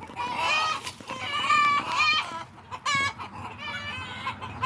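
Backyard chickens clucking and calling, a run of several short pitched calls one after another.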